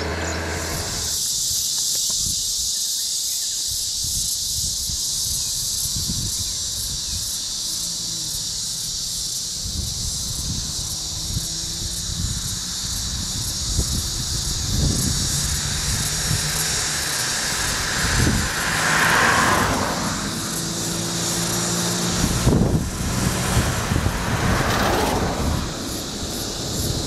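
Motor vehicles running slowly on the road, their engines a low hum under a steady high-pitched hiss, with a louder swell about two-thirds of the way through.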